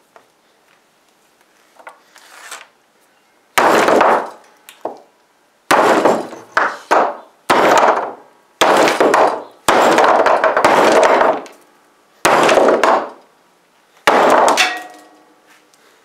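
Hammer blows smashing a plastic action figure on a wooden workbench: about eight heavy strikes roughly a second apart, starting about three and a half seconds in, each a sharp knock with a short ring.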